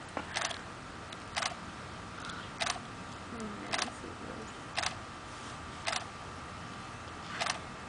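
A DSLR camera shutter firing single frames, seven sharp clicks about once a second.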